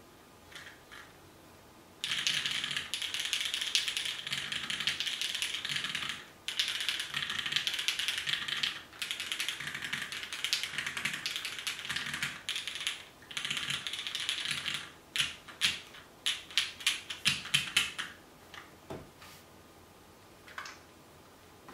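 Fast typing on two mechanical keyboards at once, one under each hand: a dense clatter of keystrokes starts about two seconds in and runs with short breaks, then turns into separate, louder key presses before stopping a few seconds before the end.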